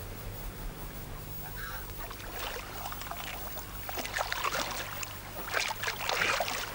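Ducks quacking: a few scattered calls at first, growing busier and louder from about four seconds in.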